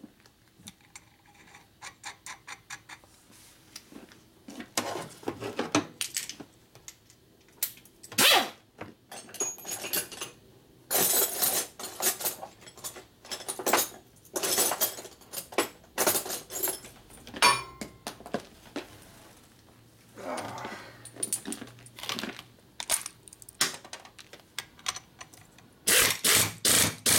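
Small metal parts and tools clinking and knocking on a steel workbench while the rocker shaft nut is fitted to an aluminium Harley-Davidson Sportster Ironhead rocker box. Near the end a pneumatic air ratchet runs in a quick series of rapid strokes, tightening the rocker shaft nut.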